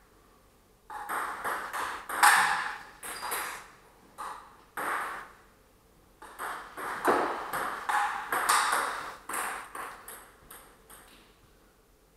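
Table tennis rally: the ball clicking off the paddles and bouncing on the table in quick succession, with a short pause about halfway through.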